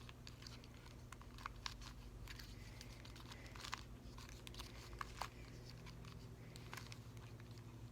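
Plastic puzzle cube being turned by hand: faint, irregular clicks and rattles as its layers are twisted.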